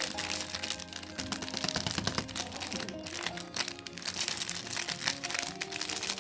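Background music with a steady run of melody notes, over the crinkling and crackling of plastic candy wrappers being handled and unwrapped.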